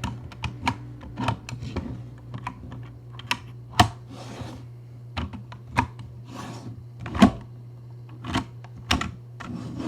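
Irregular light clicks and taps of hard plastic, one or two a second, with a couple of brief scraping sounds, over a steady low hum.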